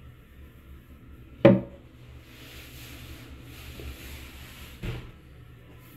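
Plastic toilet seat lid on a Kohler toilet being raised and lowered: a loud clack about a second and a half in, faint rubbing, then a lighter knock near the end.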